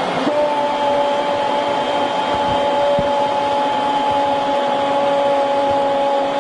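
Large stadium crowd cheering a goal, with a sustained two-note tone starting just after the beginning and holding steady.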